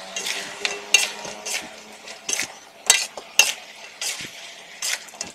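Metal slotted spatula scraping and clinking against a metal wok while stirring a thick chicken and lotus-root stir-fry, about eight irregular strokes.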